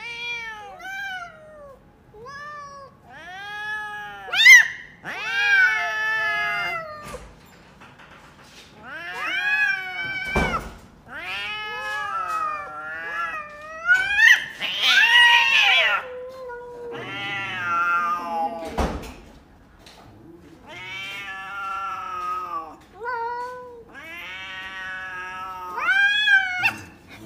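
Two cats meowing and yowling at each other in a long back-and-forth series of drawn-out calls that rise and fall in pitch. Two dull thumps break in, about ten and nineteen seconds in.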